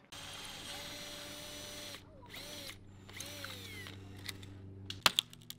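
Cordless power drill driving screws into a wooden utility pole to mount a hoop. It runs steadily for about two seconds, then in shorter bursts that spin up and wind down, with a few sharp knocks near the end.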